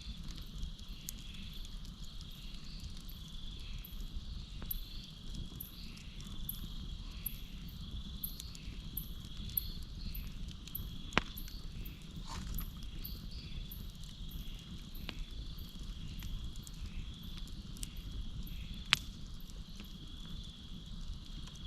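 Campfire burning with a low steady rumble and scattered sharp crackles; two louder pops come about halfway through and near the end. Crickets chirp behind it in a steady, regularly pulsing rhythm.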